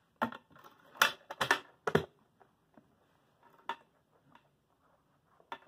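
Clicks and knocks of a spare pistol magazine being handled and set into a small steel lock box, several in quick succession in the first two seconds, then a few single clicks.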